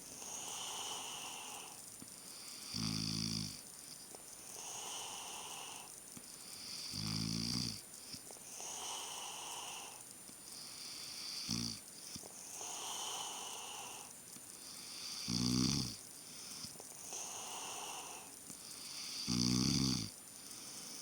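A sleeping person snoring, with a low snore about every four seconds, five in all, the third one short. A breathy sound falls between the snores.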